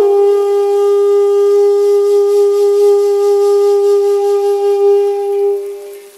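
Background music: a wind instrument holds one long, steady note that fades out near the end.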